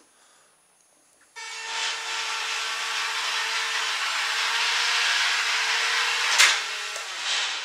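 Twin small electric motors and propellers salvaged from a cheap RC helicopter starting abruptly about a second and a half in and running at speed as a steady whine, pushing a bead-footed styrofoam plate across a floor. A sharp tap comes near the end, and the motors cut off just after it.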